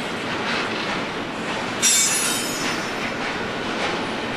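Union Pacific double-stack container freight train rolling past with a steady rumble of wheels on rail, and a brief high-pitched wheel squeal about two seconds in.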